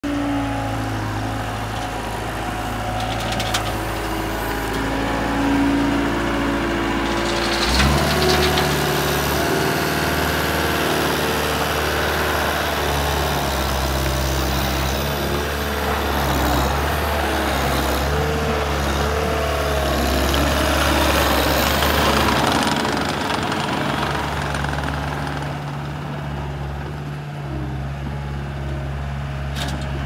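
Cat 279C compact track loader's diesel engine idling, then throttled up about eight seconds in and running steadily at higher speed as the machine drives on its rubber tracks over gravel.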